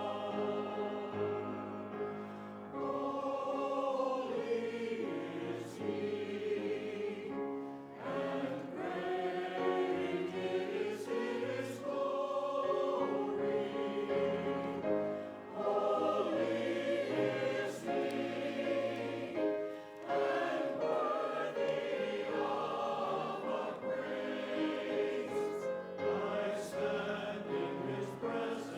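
Many voices singing a hymn together in held, sustained notes.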